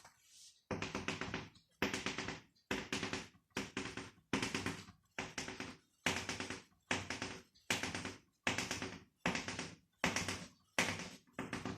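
More than a dozen quick tapping and scraping strokes, each starting sharply and fading, about one or two a second: a pen or chalk drawing on a board.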